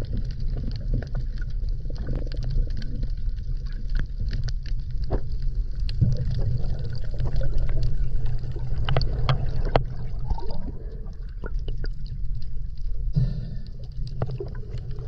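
Underwater sound picked up by a submerged camera: a steady low rumble of water moving over the microphone, with many scattered sharp clicks and crackles.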